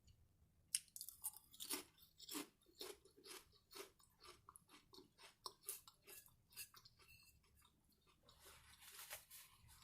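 A person chewing a mouthful of food close to the microphone, with crisp, crunchy strokes about three times a second. A softer hissing noise comes in a little before the end.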